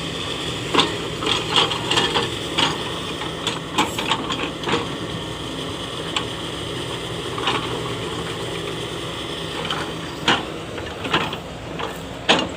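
Heavy machine's diesel engine running at a steady drone, with scattered sharp knocks and clanks over it.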